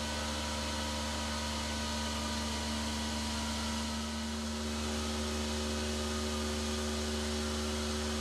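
CNC stone-cutting machine running steadily as its water-fed spindle tool grinds a stone worktop: a constant low motor hum with several held steady tones over a hiss.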